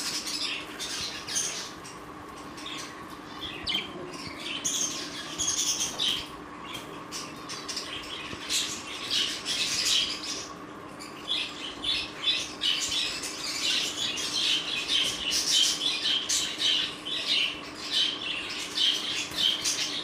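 A crowded flock of budgerigars chattering and squawking in a wire cage, a dense run of short high chirps that grows busier about halfway through, with wing flapping as birds are moved from cage to cage.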